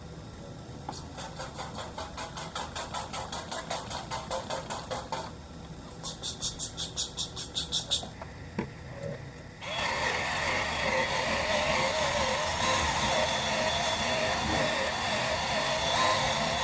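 Two runs of quick rhythmic noisy strokes, about four a second. Then, about ten seconds in, a Workpro 12V cordless sander/polisher starts and runs steadily on a plastic headlight lens, its pitch wavering slightly under hand pressure.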